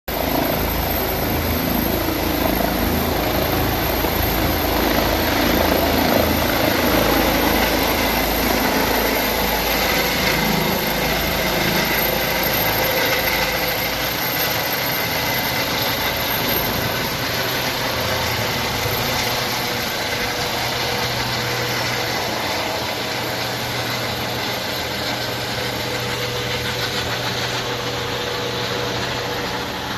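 A rescue helicopter's turbine engine and rotor running, a steady rushing noise with a thin whine through it. The deep rumble falls away about halfway through, and the whole sound grows slowly quieter.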